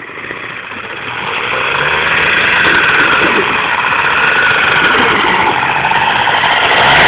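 D-6 two-stroke moped engine on a motorized bicycle running steadily, heard close to its exhaust pipe, growing louder over the first two or three seconds and then holding.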